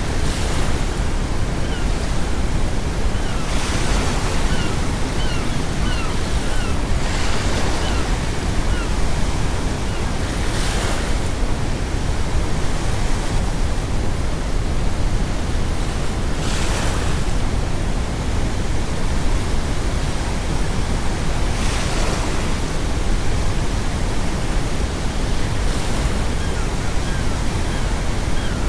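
Ocean waves breaking every four to six seconds over a steady, deep brown-noise rush. Faint seagull calls come in short series between about three and nine seconds in and again near the end.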